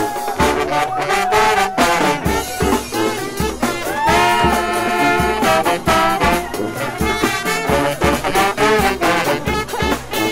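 Brass band playing a funk tune: sousaphone, trombones and trumpets holding and stabbing notes over a steady drum beat from snare and bass drum.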